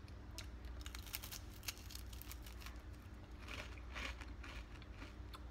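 A crisp dehydrated corn-onion cracker being bitten and chewed: a run of dry crunches and crackles, thickest about a second in and again around three and a half to four seconds in.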